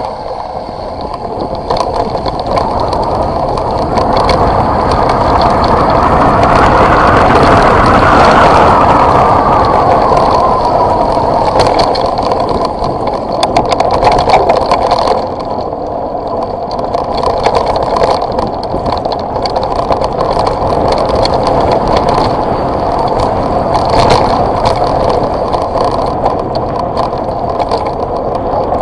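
Wind rushing over an action camera's microphone with tyres rolling and rattling over a gravel dirt road on a downhill ride, with many small knocks throughout. It swells to its loudest about seven to nine seconds in, then settles to a steadier level.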